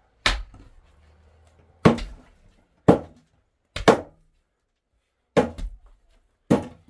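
Hammer blows on a door being repaired: six sharp strikes spaced unevenly, about a second apart.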